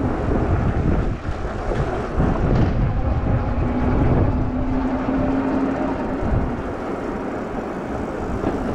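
Riding noise on a Super73 electric bike: an uneven wind rumble on the microphone and tyre noise on the road. A faint steady hum comes in for a few seconds around the middle.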